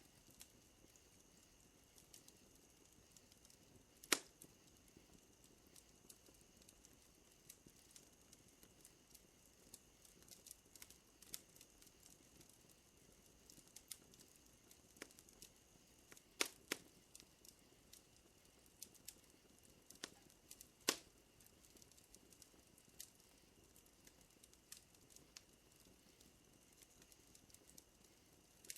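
Faint wood fire crackling: scattered sharp pops and snaps, with three louder pops about 4, 16 and 21 seconds in. Under it runs a steady, high-pitched night-insect drone.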